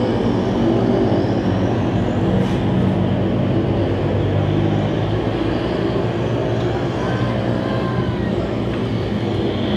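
Several small-engine dirt-track race cars running at speed together, a continuous engine drone with the pitch swinging up and down as cars pass.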